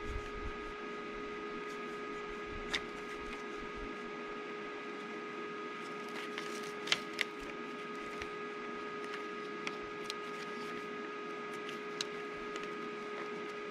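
Steady background hum of a few held tones, with scattered soft clicks and taps as holes are poked through a paper template laid over the winch's mounting holes.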